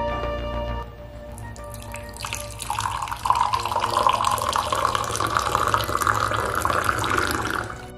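A drink poured in a steady stream into a glass tumbler, splashing for about five seconds and stopping just before the end. A short stretch of background music ends about a second in.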